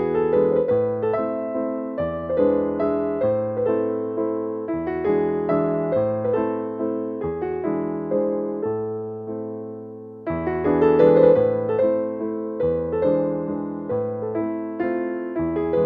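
Background piano music: a gentle melody of struck notes decaying between them, a new phrase starting louder about ten seconds in.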